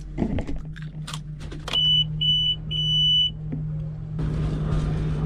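Clicks and clatter, then an electronic beeper sounds three times at one high pitch: two short beeps and a longer one. About four seconds in, a louder steady rushing rumble starts over a low hum.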